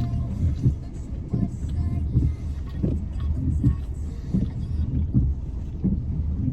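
Car interior noise while driving: a steady low road rumble with regularly spaced low thumps.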